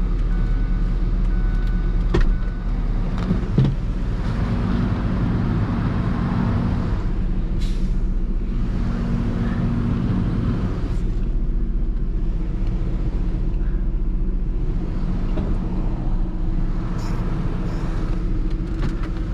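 A motor vehicle running steadily with a low, even hum, and two sharp clicks about two and three and a half seconds in; no knocking stands out.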